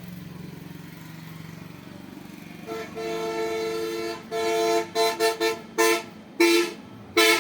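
Vehicle horn honking: one long blast, then a run of short, uneven toots at the same pitch. A low steady hum, like an engine running, is heard before the horn starts.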